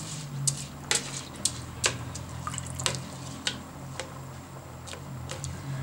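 A spoon pressing and smoothing rice flat in a pot of simmering plov liquid: irregular wet clicks and pops, about one or two a second, over a steady low hum.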